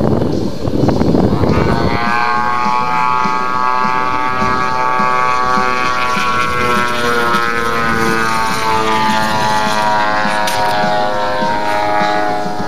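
RC model airplane engine and propeller running steadily, its pitch sagging slightly in the middle and rising again near the end. A heavy low rumble of wind on the microphone covers the first two seconds.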